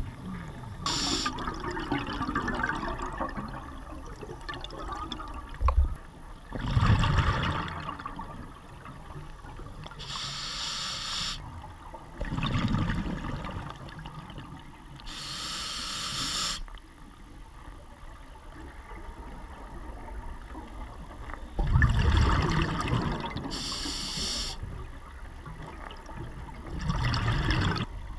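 Scuba diver breathing through a regulator underwater: a short hiss on each inhale and a burst of bubbles on each exhale, about one breath every five or six seconds.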